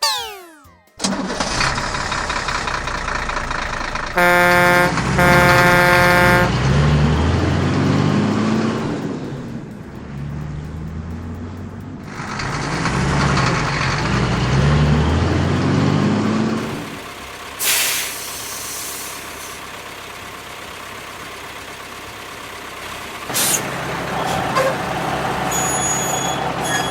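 Cartoon truck sound effects: a quick falling sweep at the start, then a truck engine running with two short horn honks about four seconds in, and a short knock a little past the middle.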